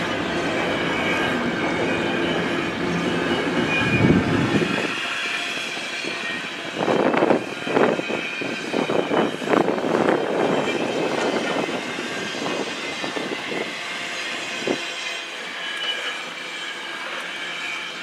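Double-stack intermodal container cars rolling past: a steady rattle of wheels and cars with a thin, high wheel squeal. The low rumble drops away about four and a half seconds in. A run of clanks and clatter follows between about seven and eleven seconds in.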